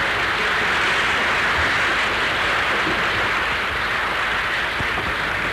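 Steady applause from a large assembly, the clapping blended into a dense, even hiss on an old archival sound recording.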